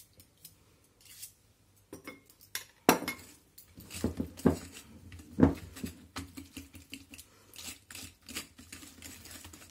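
A whisk beating softened butter into egg yolks and sugar in a glass mixing bowl, clinking against the bowl's sides. A few light taps come first, then about three seconds in the beating starts as a run of irregular clinks and knocks, loudest in the first few seconds.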